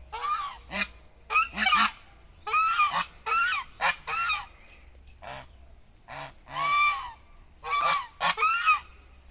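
Domestic geese honking: a string of short calls, many in quick pairs or threes with brief pauses between the groups.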